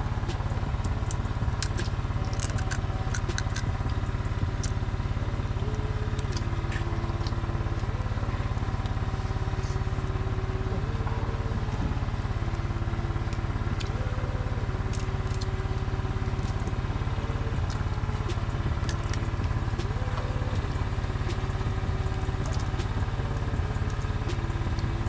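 Generator engine running steadily behind the eating area, a constant low hum, with scattered light clicks over it.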